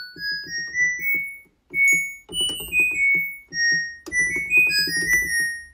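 Background music: a keyboard tune of short, high plinking notes stepping up and down over a steady, bouncy beat.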